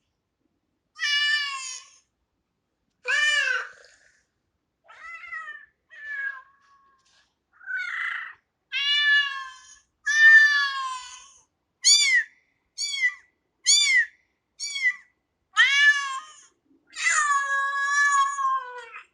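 A cat meowing over and over, about a dozen high-pitched meows with short gaps between them; a run of short, quick meows comes in the middle and one long drawn-out meow near the end.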